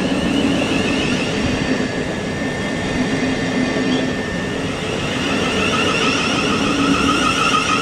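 A train running past at the platform: steady wheel and rail noise with wavering whining tones, a higher whine joining about five seconds in.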